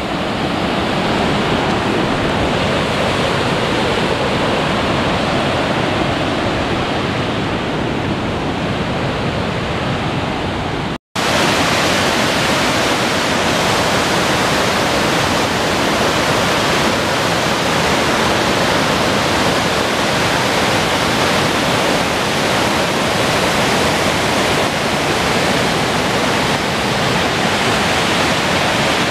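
Grand River water rushing over a dam and down through whitewater rapids: a loud, steady rush. It cuts out for an instant about eleven seconds in and comes back brighter and closer.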